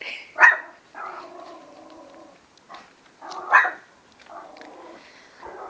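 Teacup Yorkshire terrier puppy barking sharply twice, about half a second and three and a half seconds in, with long low growls between, alarmed by a balloon.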